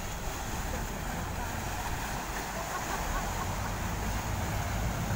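Orange-flag Chao Phraya Express river boat pulling in alongside the pier: its engine rumbles and its wake water churns, growing steadily louder.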